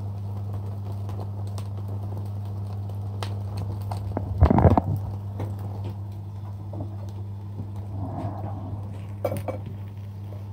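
Steady low hum with a metallic clatter about halfway through as a wire grill basket of chicken wings is lifted off a gas stove burner, and a few lighter knocks near the end as the basket is set down on a plate.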